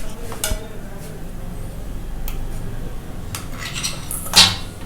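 A spoon and metal idli plates clinking and scraping as steamed idlis are lifted out, with a few separate clinks and one louder scrape near the end.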